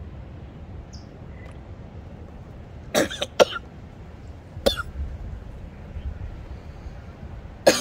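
A man coughing in short, sharp fits while eating very spicy 2X ramen noodles: two coughs about three seconds in, one more near five seconds, and another at the very end.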